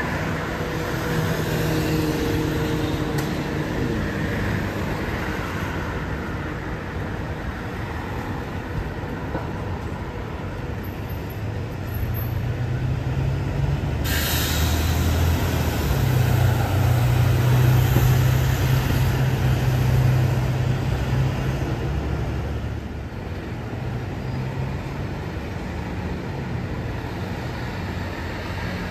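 Diesel engines of city buses running as they drive past; the loudest is a Mercedes-Benz Citaro pulling past about halfway through, its engine note swelling and then fading. A short hiss sounds as it comes in.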